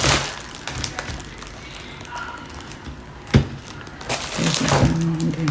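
Handling clicks and knocks of an adjustable tablet stand as a tablet is set into it: scattered taps, with a sharp knock about three and a half seconds in.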